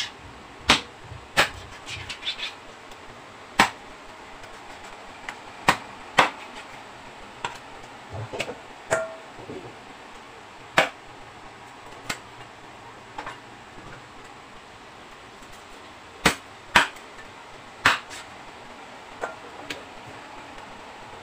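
Meat cleaver chopping raw chicken on a wooden cutting board: single sharp chops at irregular intervals, one to a few seconds apart, with quieter handling of the meat between them.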